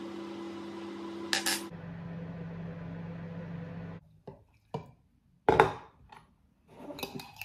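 A kitchen appliance hums steadily, with a click and a drop in pitch about a second and a half in, then stops about four seconds in. After it, a mug and jug clink and knock on the worktop in a few separate sharp knocks, the loudest about five and a half seconds in, ending in a short clatter.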